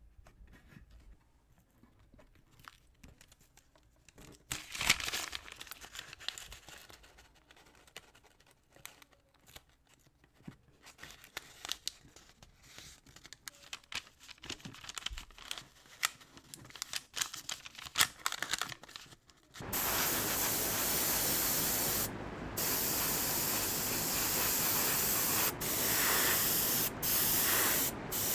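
Masking tape being torn and pressed down and stiff paper handled: a scatter of small rips, rubs and crinkles. About twenty seconds in, an airbrush starts spraying paint, a steady loud hiss that is broken by short pauses a few times near the end.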